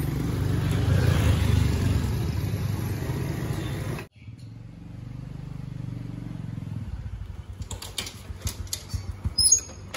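A motor vehicle engine running, loud for the first four seconds, then cut off abruptly. A quieter engine hum follows and stops about seven seconds in. Scattered clicks and clatter fill the last few seconds.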